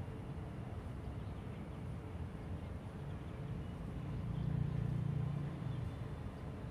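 Low, steady rumble of road traffic that swells for about two seconds from about four seconds in as a vehicle passes.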